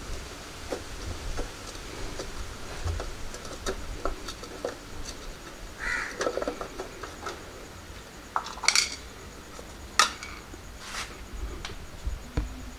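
Scattered light clicks and clinks of a screwdriver on the screws and of the red tail-light lens being handled as the lens comes off a motorcycle's tail light. The sharpest clicks come about two-thirds of the way in.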